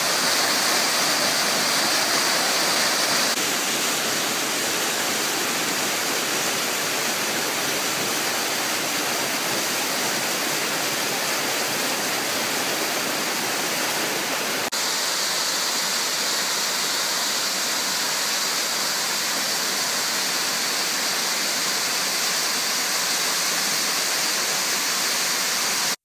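Steady rush of a mountain stream cascading over rocks. Its tone shifts slightly a few seconds in, and there is a faint click a little past halfway.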